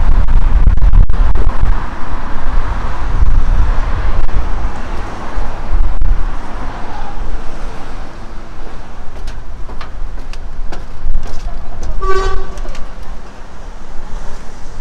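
Wind buffeting the microphone in a heavy, loud rumble over road traffic, with a short horn toot about twelve seconds in.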